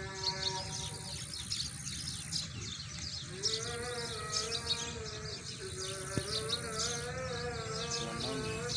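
A buzzing insect flying close by, its pitch wavering up and down, over a background of dense high chirping and a steady high whine.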